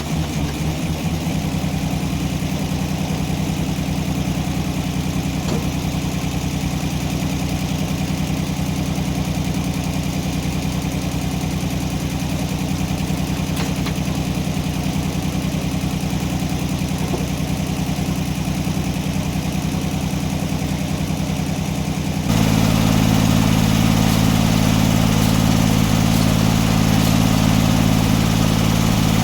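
An engine running steadily at a constant speed. About 22 seconds in, the sound switches abruptly to a louder engine note at a different pitch.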